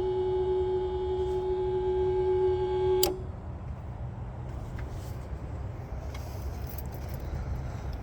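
A steady, even-pitched whine from a 2019 Chevy Colorado, the strange sound in question, cuts off suddenly with a click about three seconds in. A low rumble continues underneath.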